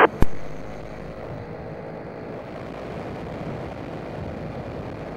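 Paramotor engine and propeller in flight, a steady drone mixed with wind rush. A sharp click a moment in, like a radio squelch as the transmission ends.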